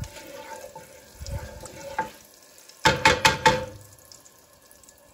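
Butter melting into hot oil, sizzling softly in a stone-coated non-stick pan as a wooden spoon stirs it. About three seconds in comes a quick run of sharp knocks, the wooden spoon tapping against the pan.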